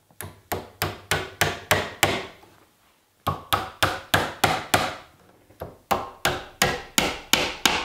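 Claw hammer tapping nails through a wooden router jig into the edge of a wooden door, tacking the jig in place. Two runs of quick, even strikes, about three a second, with a pause of about a second between them.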